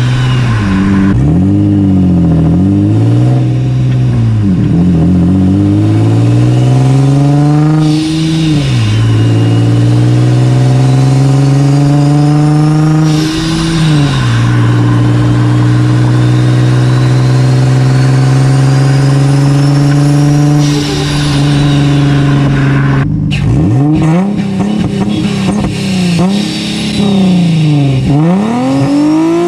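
Rear-mounted turbocharger on an Infiniti G35's V6, heard at its open velocity-stack intake as the engine revs rise and fall several times, with a faint high whistle climbing during the pulls. The engine then holds a steady speed for several seconds before the revs swing quickly up and down near the end.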